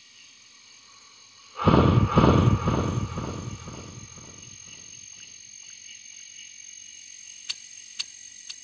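Crickets chirring steadily in a night-time insect chorus. About a second and a half in, a sudden loud low rumble pulses about five times a second and fades away over a couple of seconds. Three sharp clicks come near the end.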